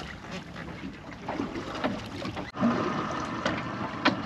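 Wind on the microphone and water moving around a small boat's hull, with a few light knocks. The sound drops out for an instant about two and a half seconds in.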